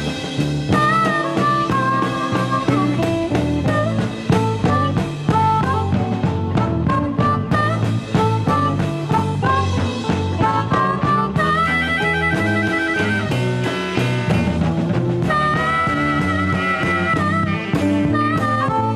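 Live electric blues: a harmonica played cupped against a microphone, with long wavering held notes in the second half, over electric guitar and drums.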